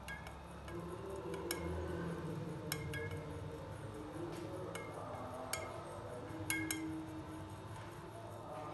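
A metal spoon stirring milk in a drinking glass, clinking against the glass about eight times at irregular intervals, each clink short and ringing.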